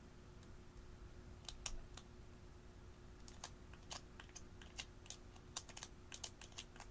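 Slime being worked by hand, giving off quiet, irregular little clicks and pops that begin about a second and a half in and come thicker toward the end.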